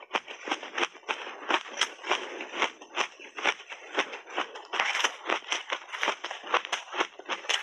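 Frozen shaved ice being chewed in big mouthfuls, close to the microphone: a rapid, irregular run of sharp crunches, several a second.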